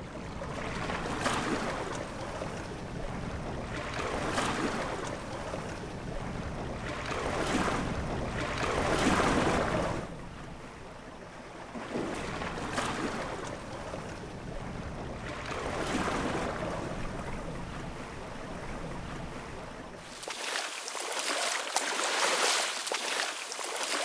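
Rushing sea water, swelling and fading every few seconds. About twenty seconds in it changes to a thinner, hissier sound without the low rumble.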